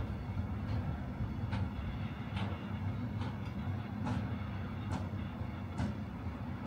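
Freight train rolling past, its wagons giving a steady low rumble with a wheel click over a rail joint a little more than once a second.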